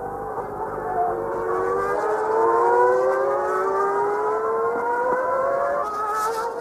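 Formula One car's engine at high revs, its whine climbing steadily in pitch as the car accelerates, then breaking off and dropping near the end.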